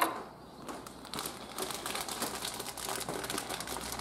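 Plastic parts bag rustling and crinkling as small brake-shoe springs are handled out of it, with a sharp click at the very start.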